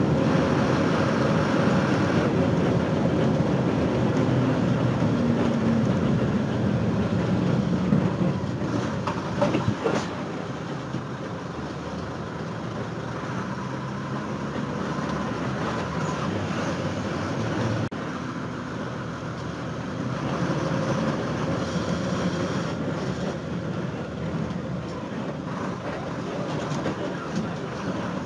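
Ride inside a moving bus: a steady rumble of engine and road noise with rattling, and a few sharp knocks about eight to ten seconds in.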